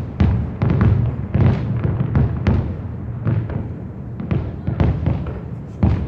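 Aerial fireworks bursting in quick, irregular succession, several bangs a second, each a sharp crack with a deep boom and a short echo.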